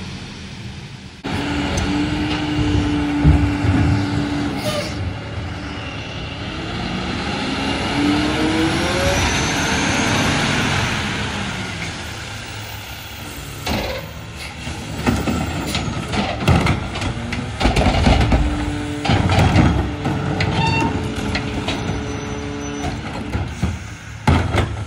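Freightliner Econic McNeilus rear-loader garbage truck driving up and passing close by, its engine rising in pitch as it pulls away and swelling in loudness as it goes past. It then stops with the engine running while carts are dumped at the rear tipper, with repeated knocks and bangs of the carts.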